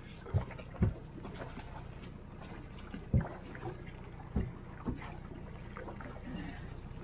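Outboard motor running with a steady low hum aboard an aluminium fishing boat, with about five short dull thumps against the hull, two near the start and three more in the middle, as a togue (lake trout) is netted over the side.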